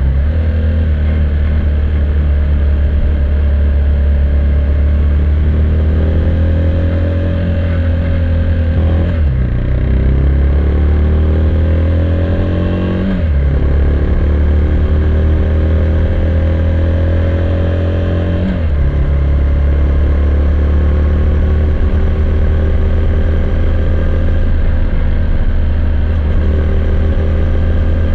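KTM Duke 390's single-cylinder engine through its stock exhaust, pulling through the gears: the note climbs slowly in pitch and drops sharply at three upshifts, then settles into a steady cruise.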